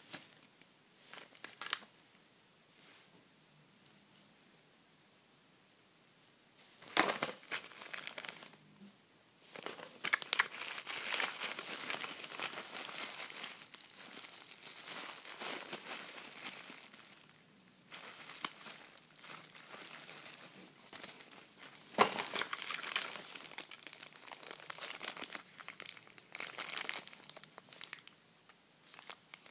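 Small clear plastic bags crinkling as they are handled, with long spells of dense crinkling from about ten seconds in and again after about twenty-two seconds. Before that, a few sharp clicks and taps, the loudest about seven seconds in.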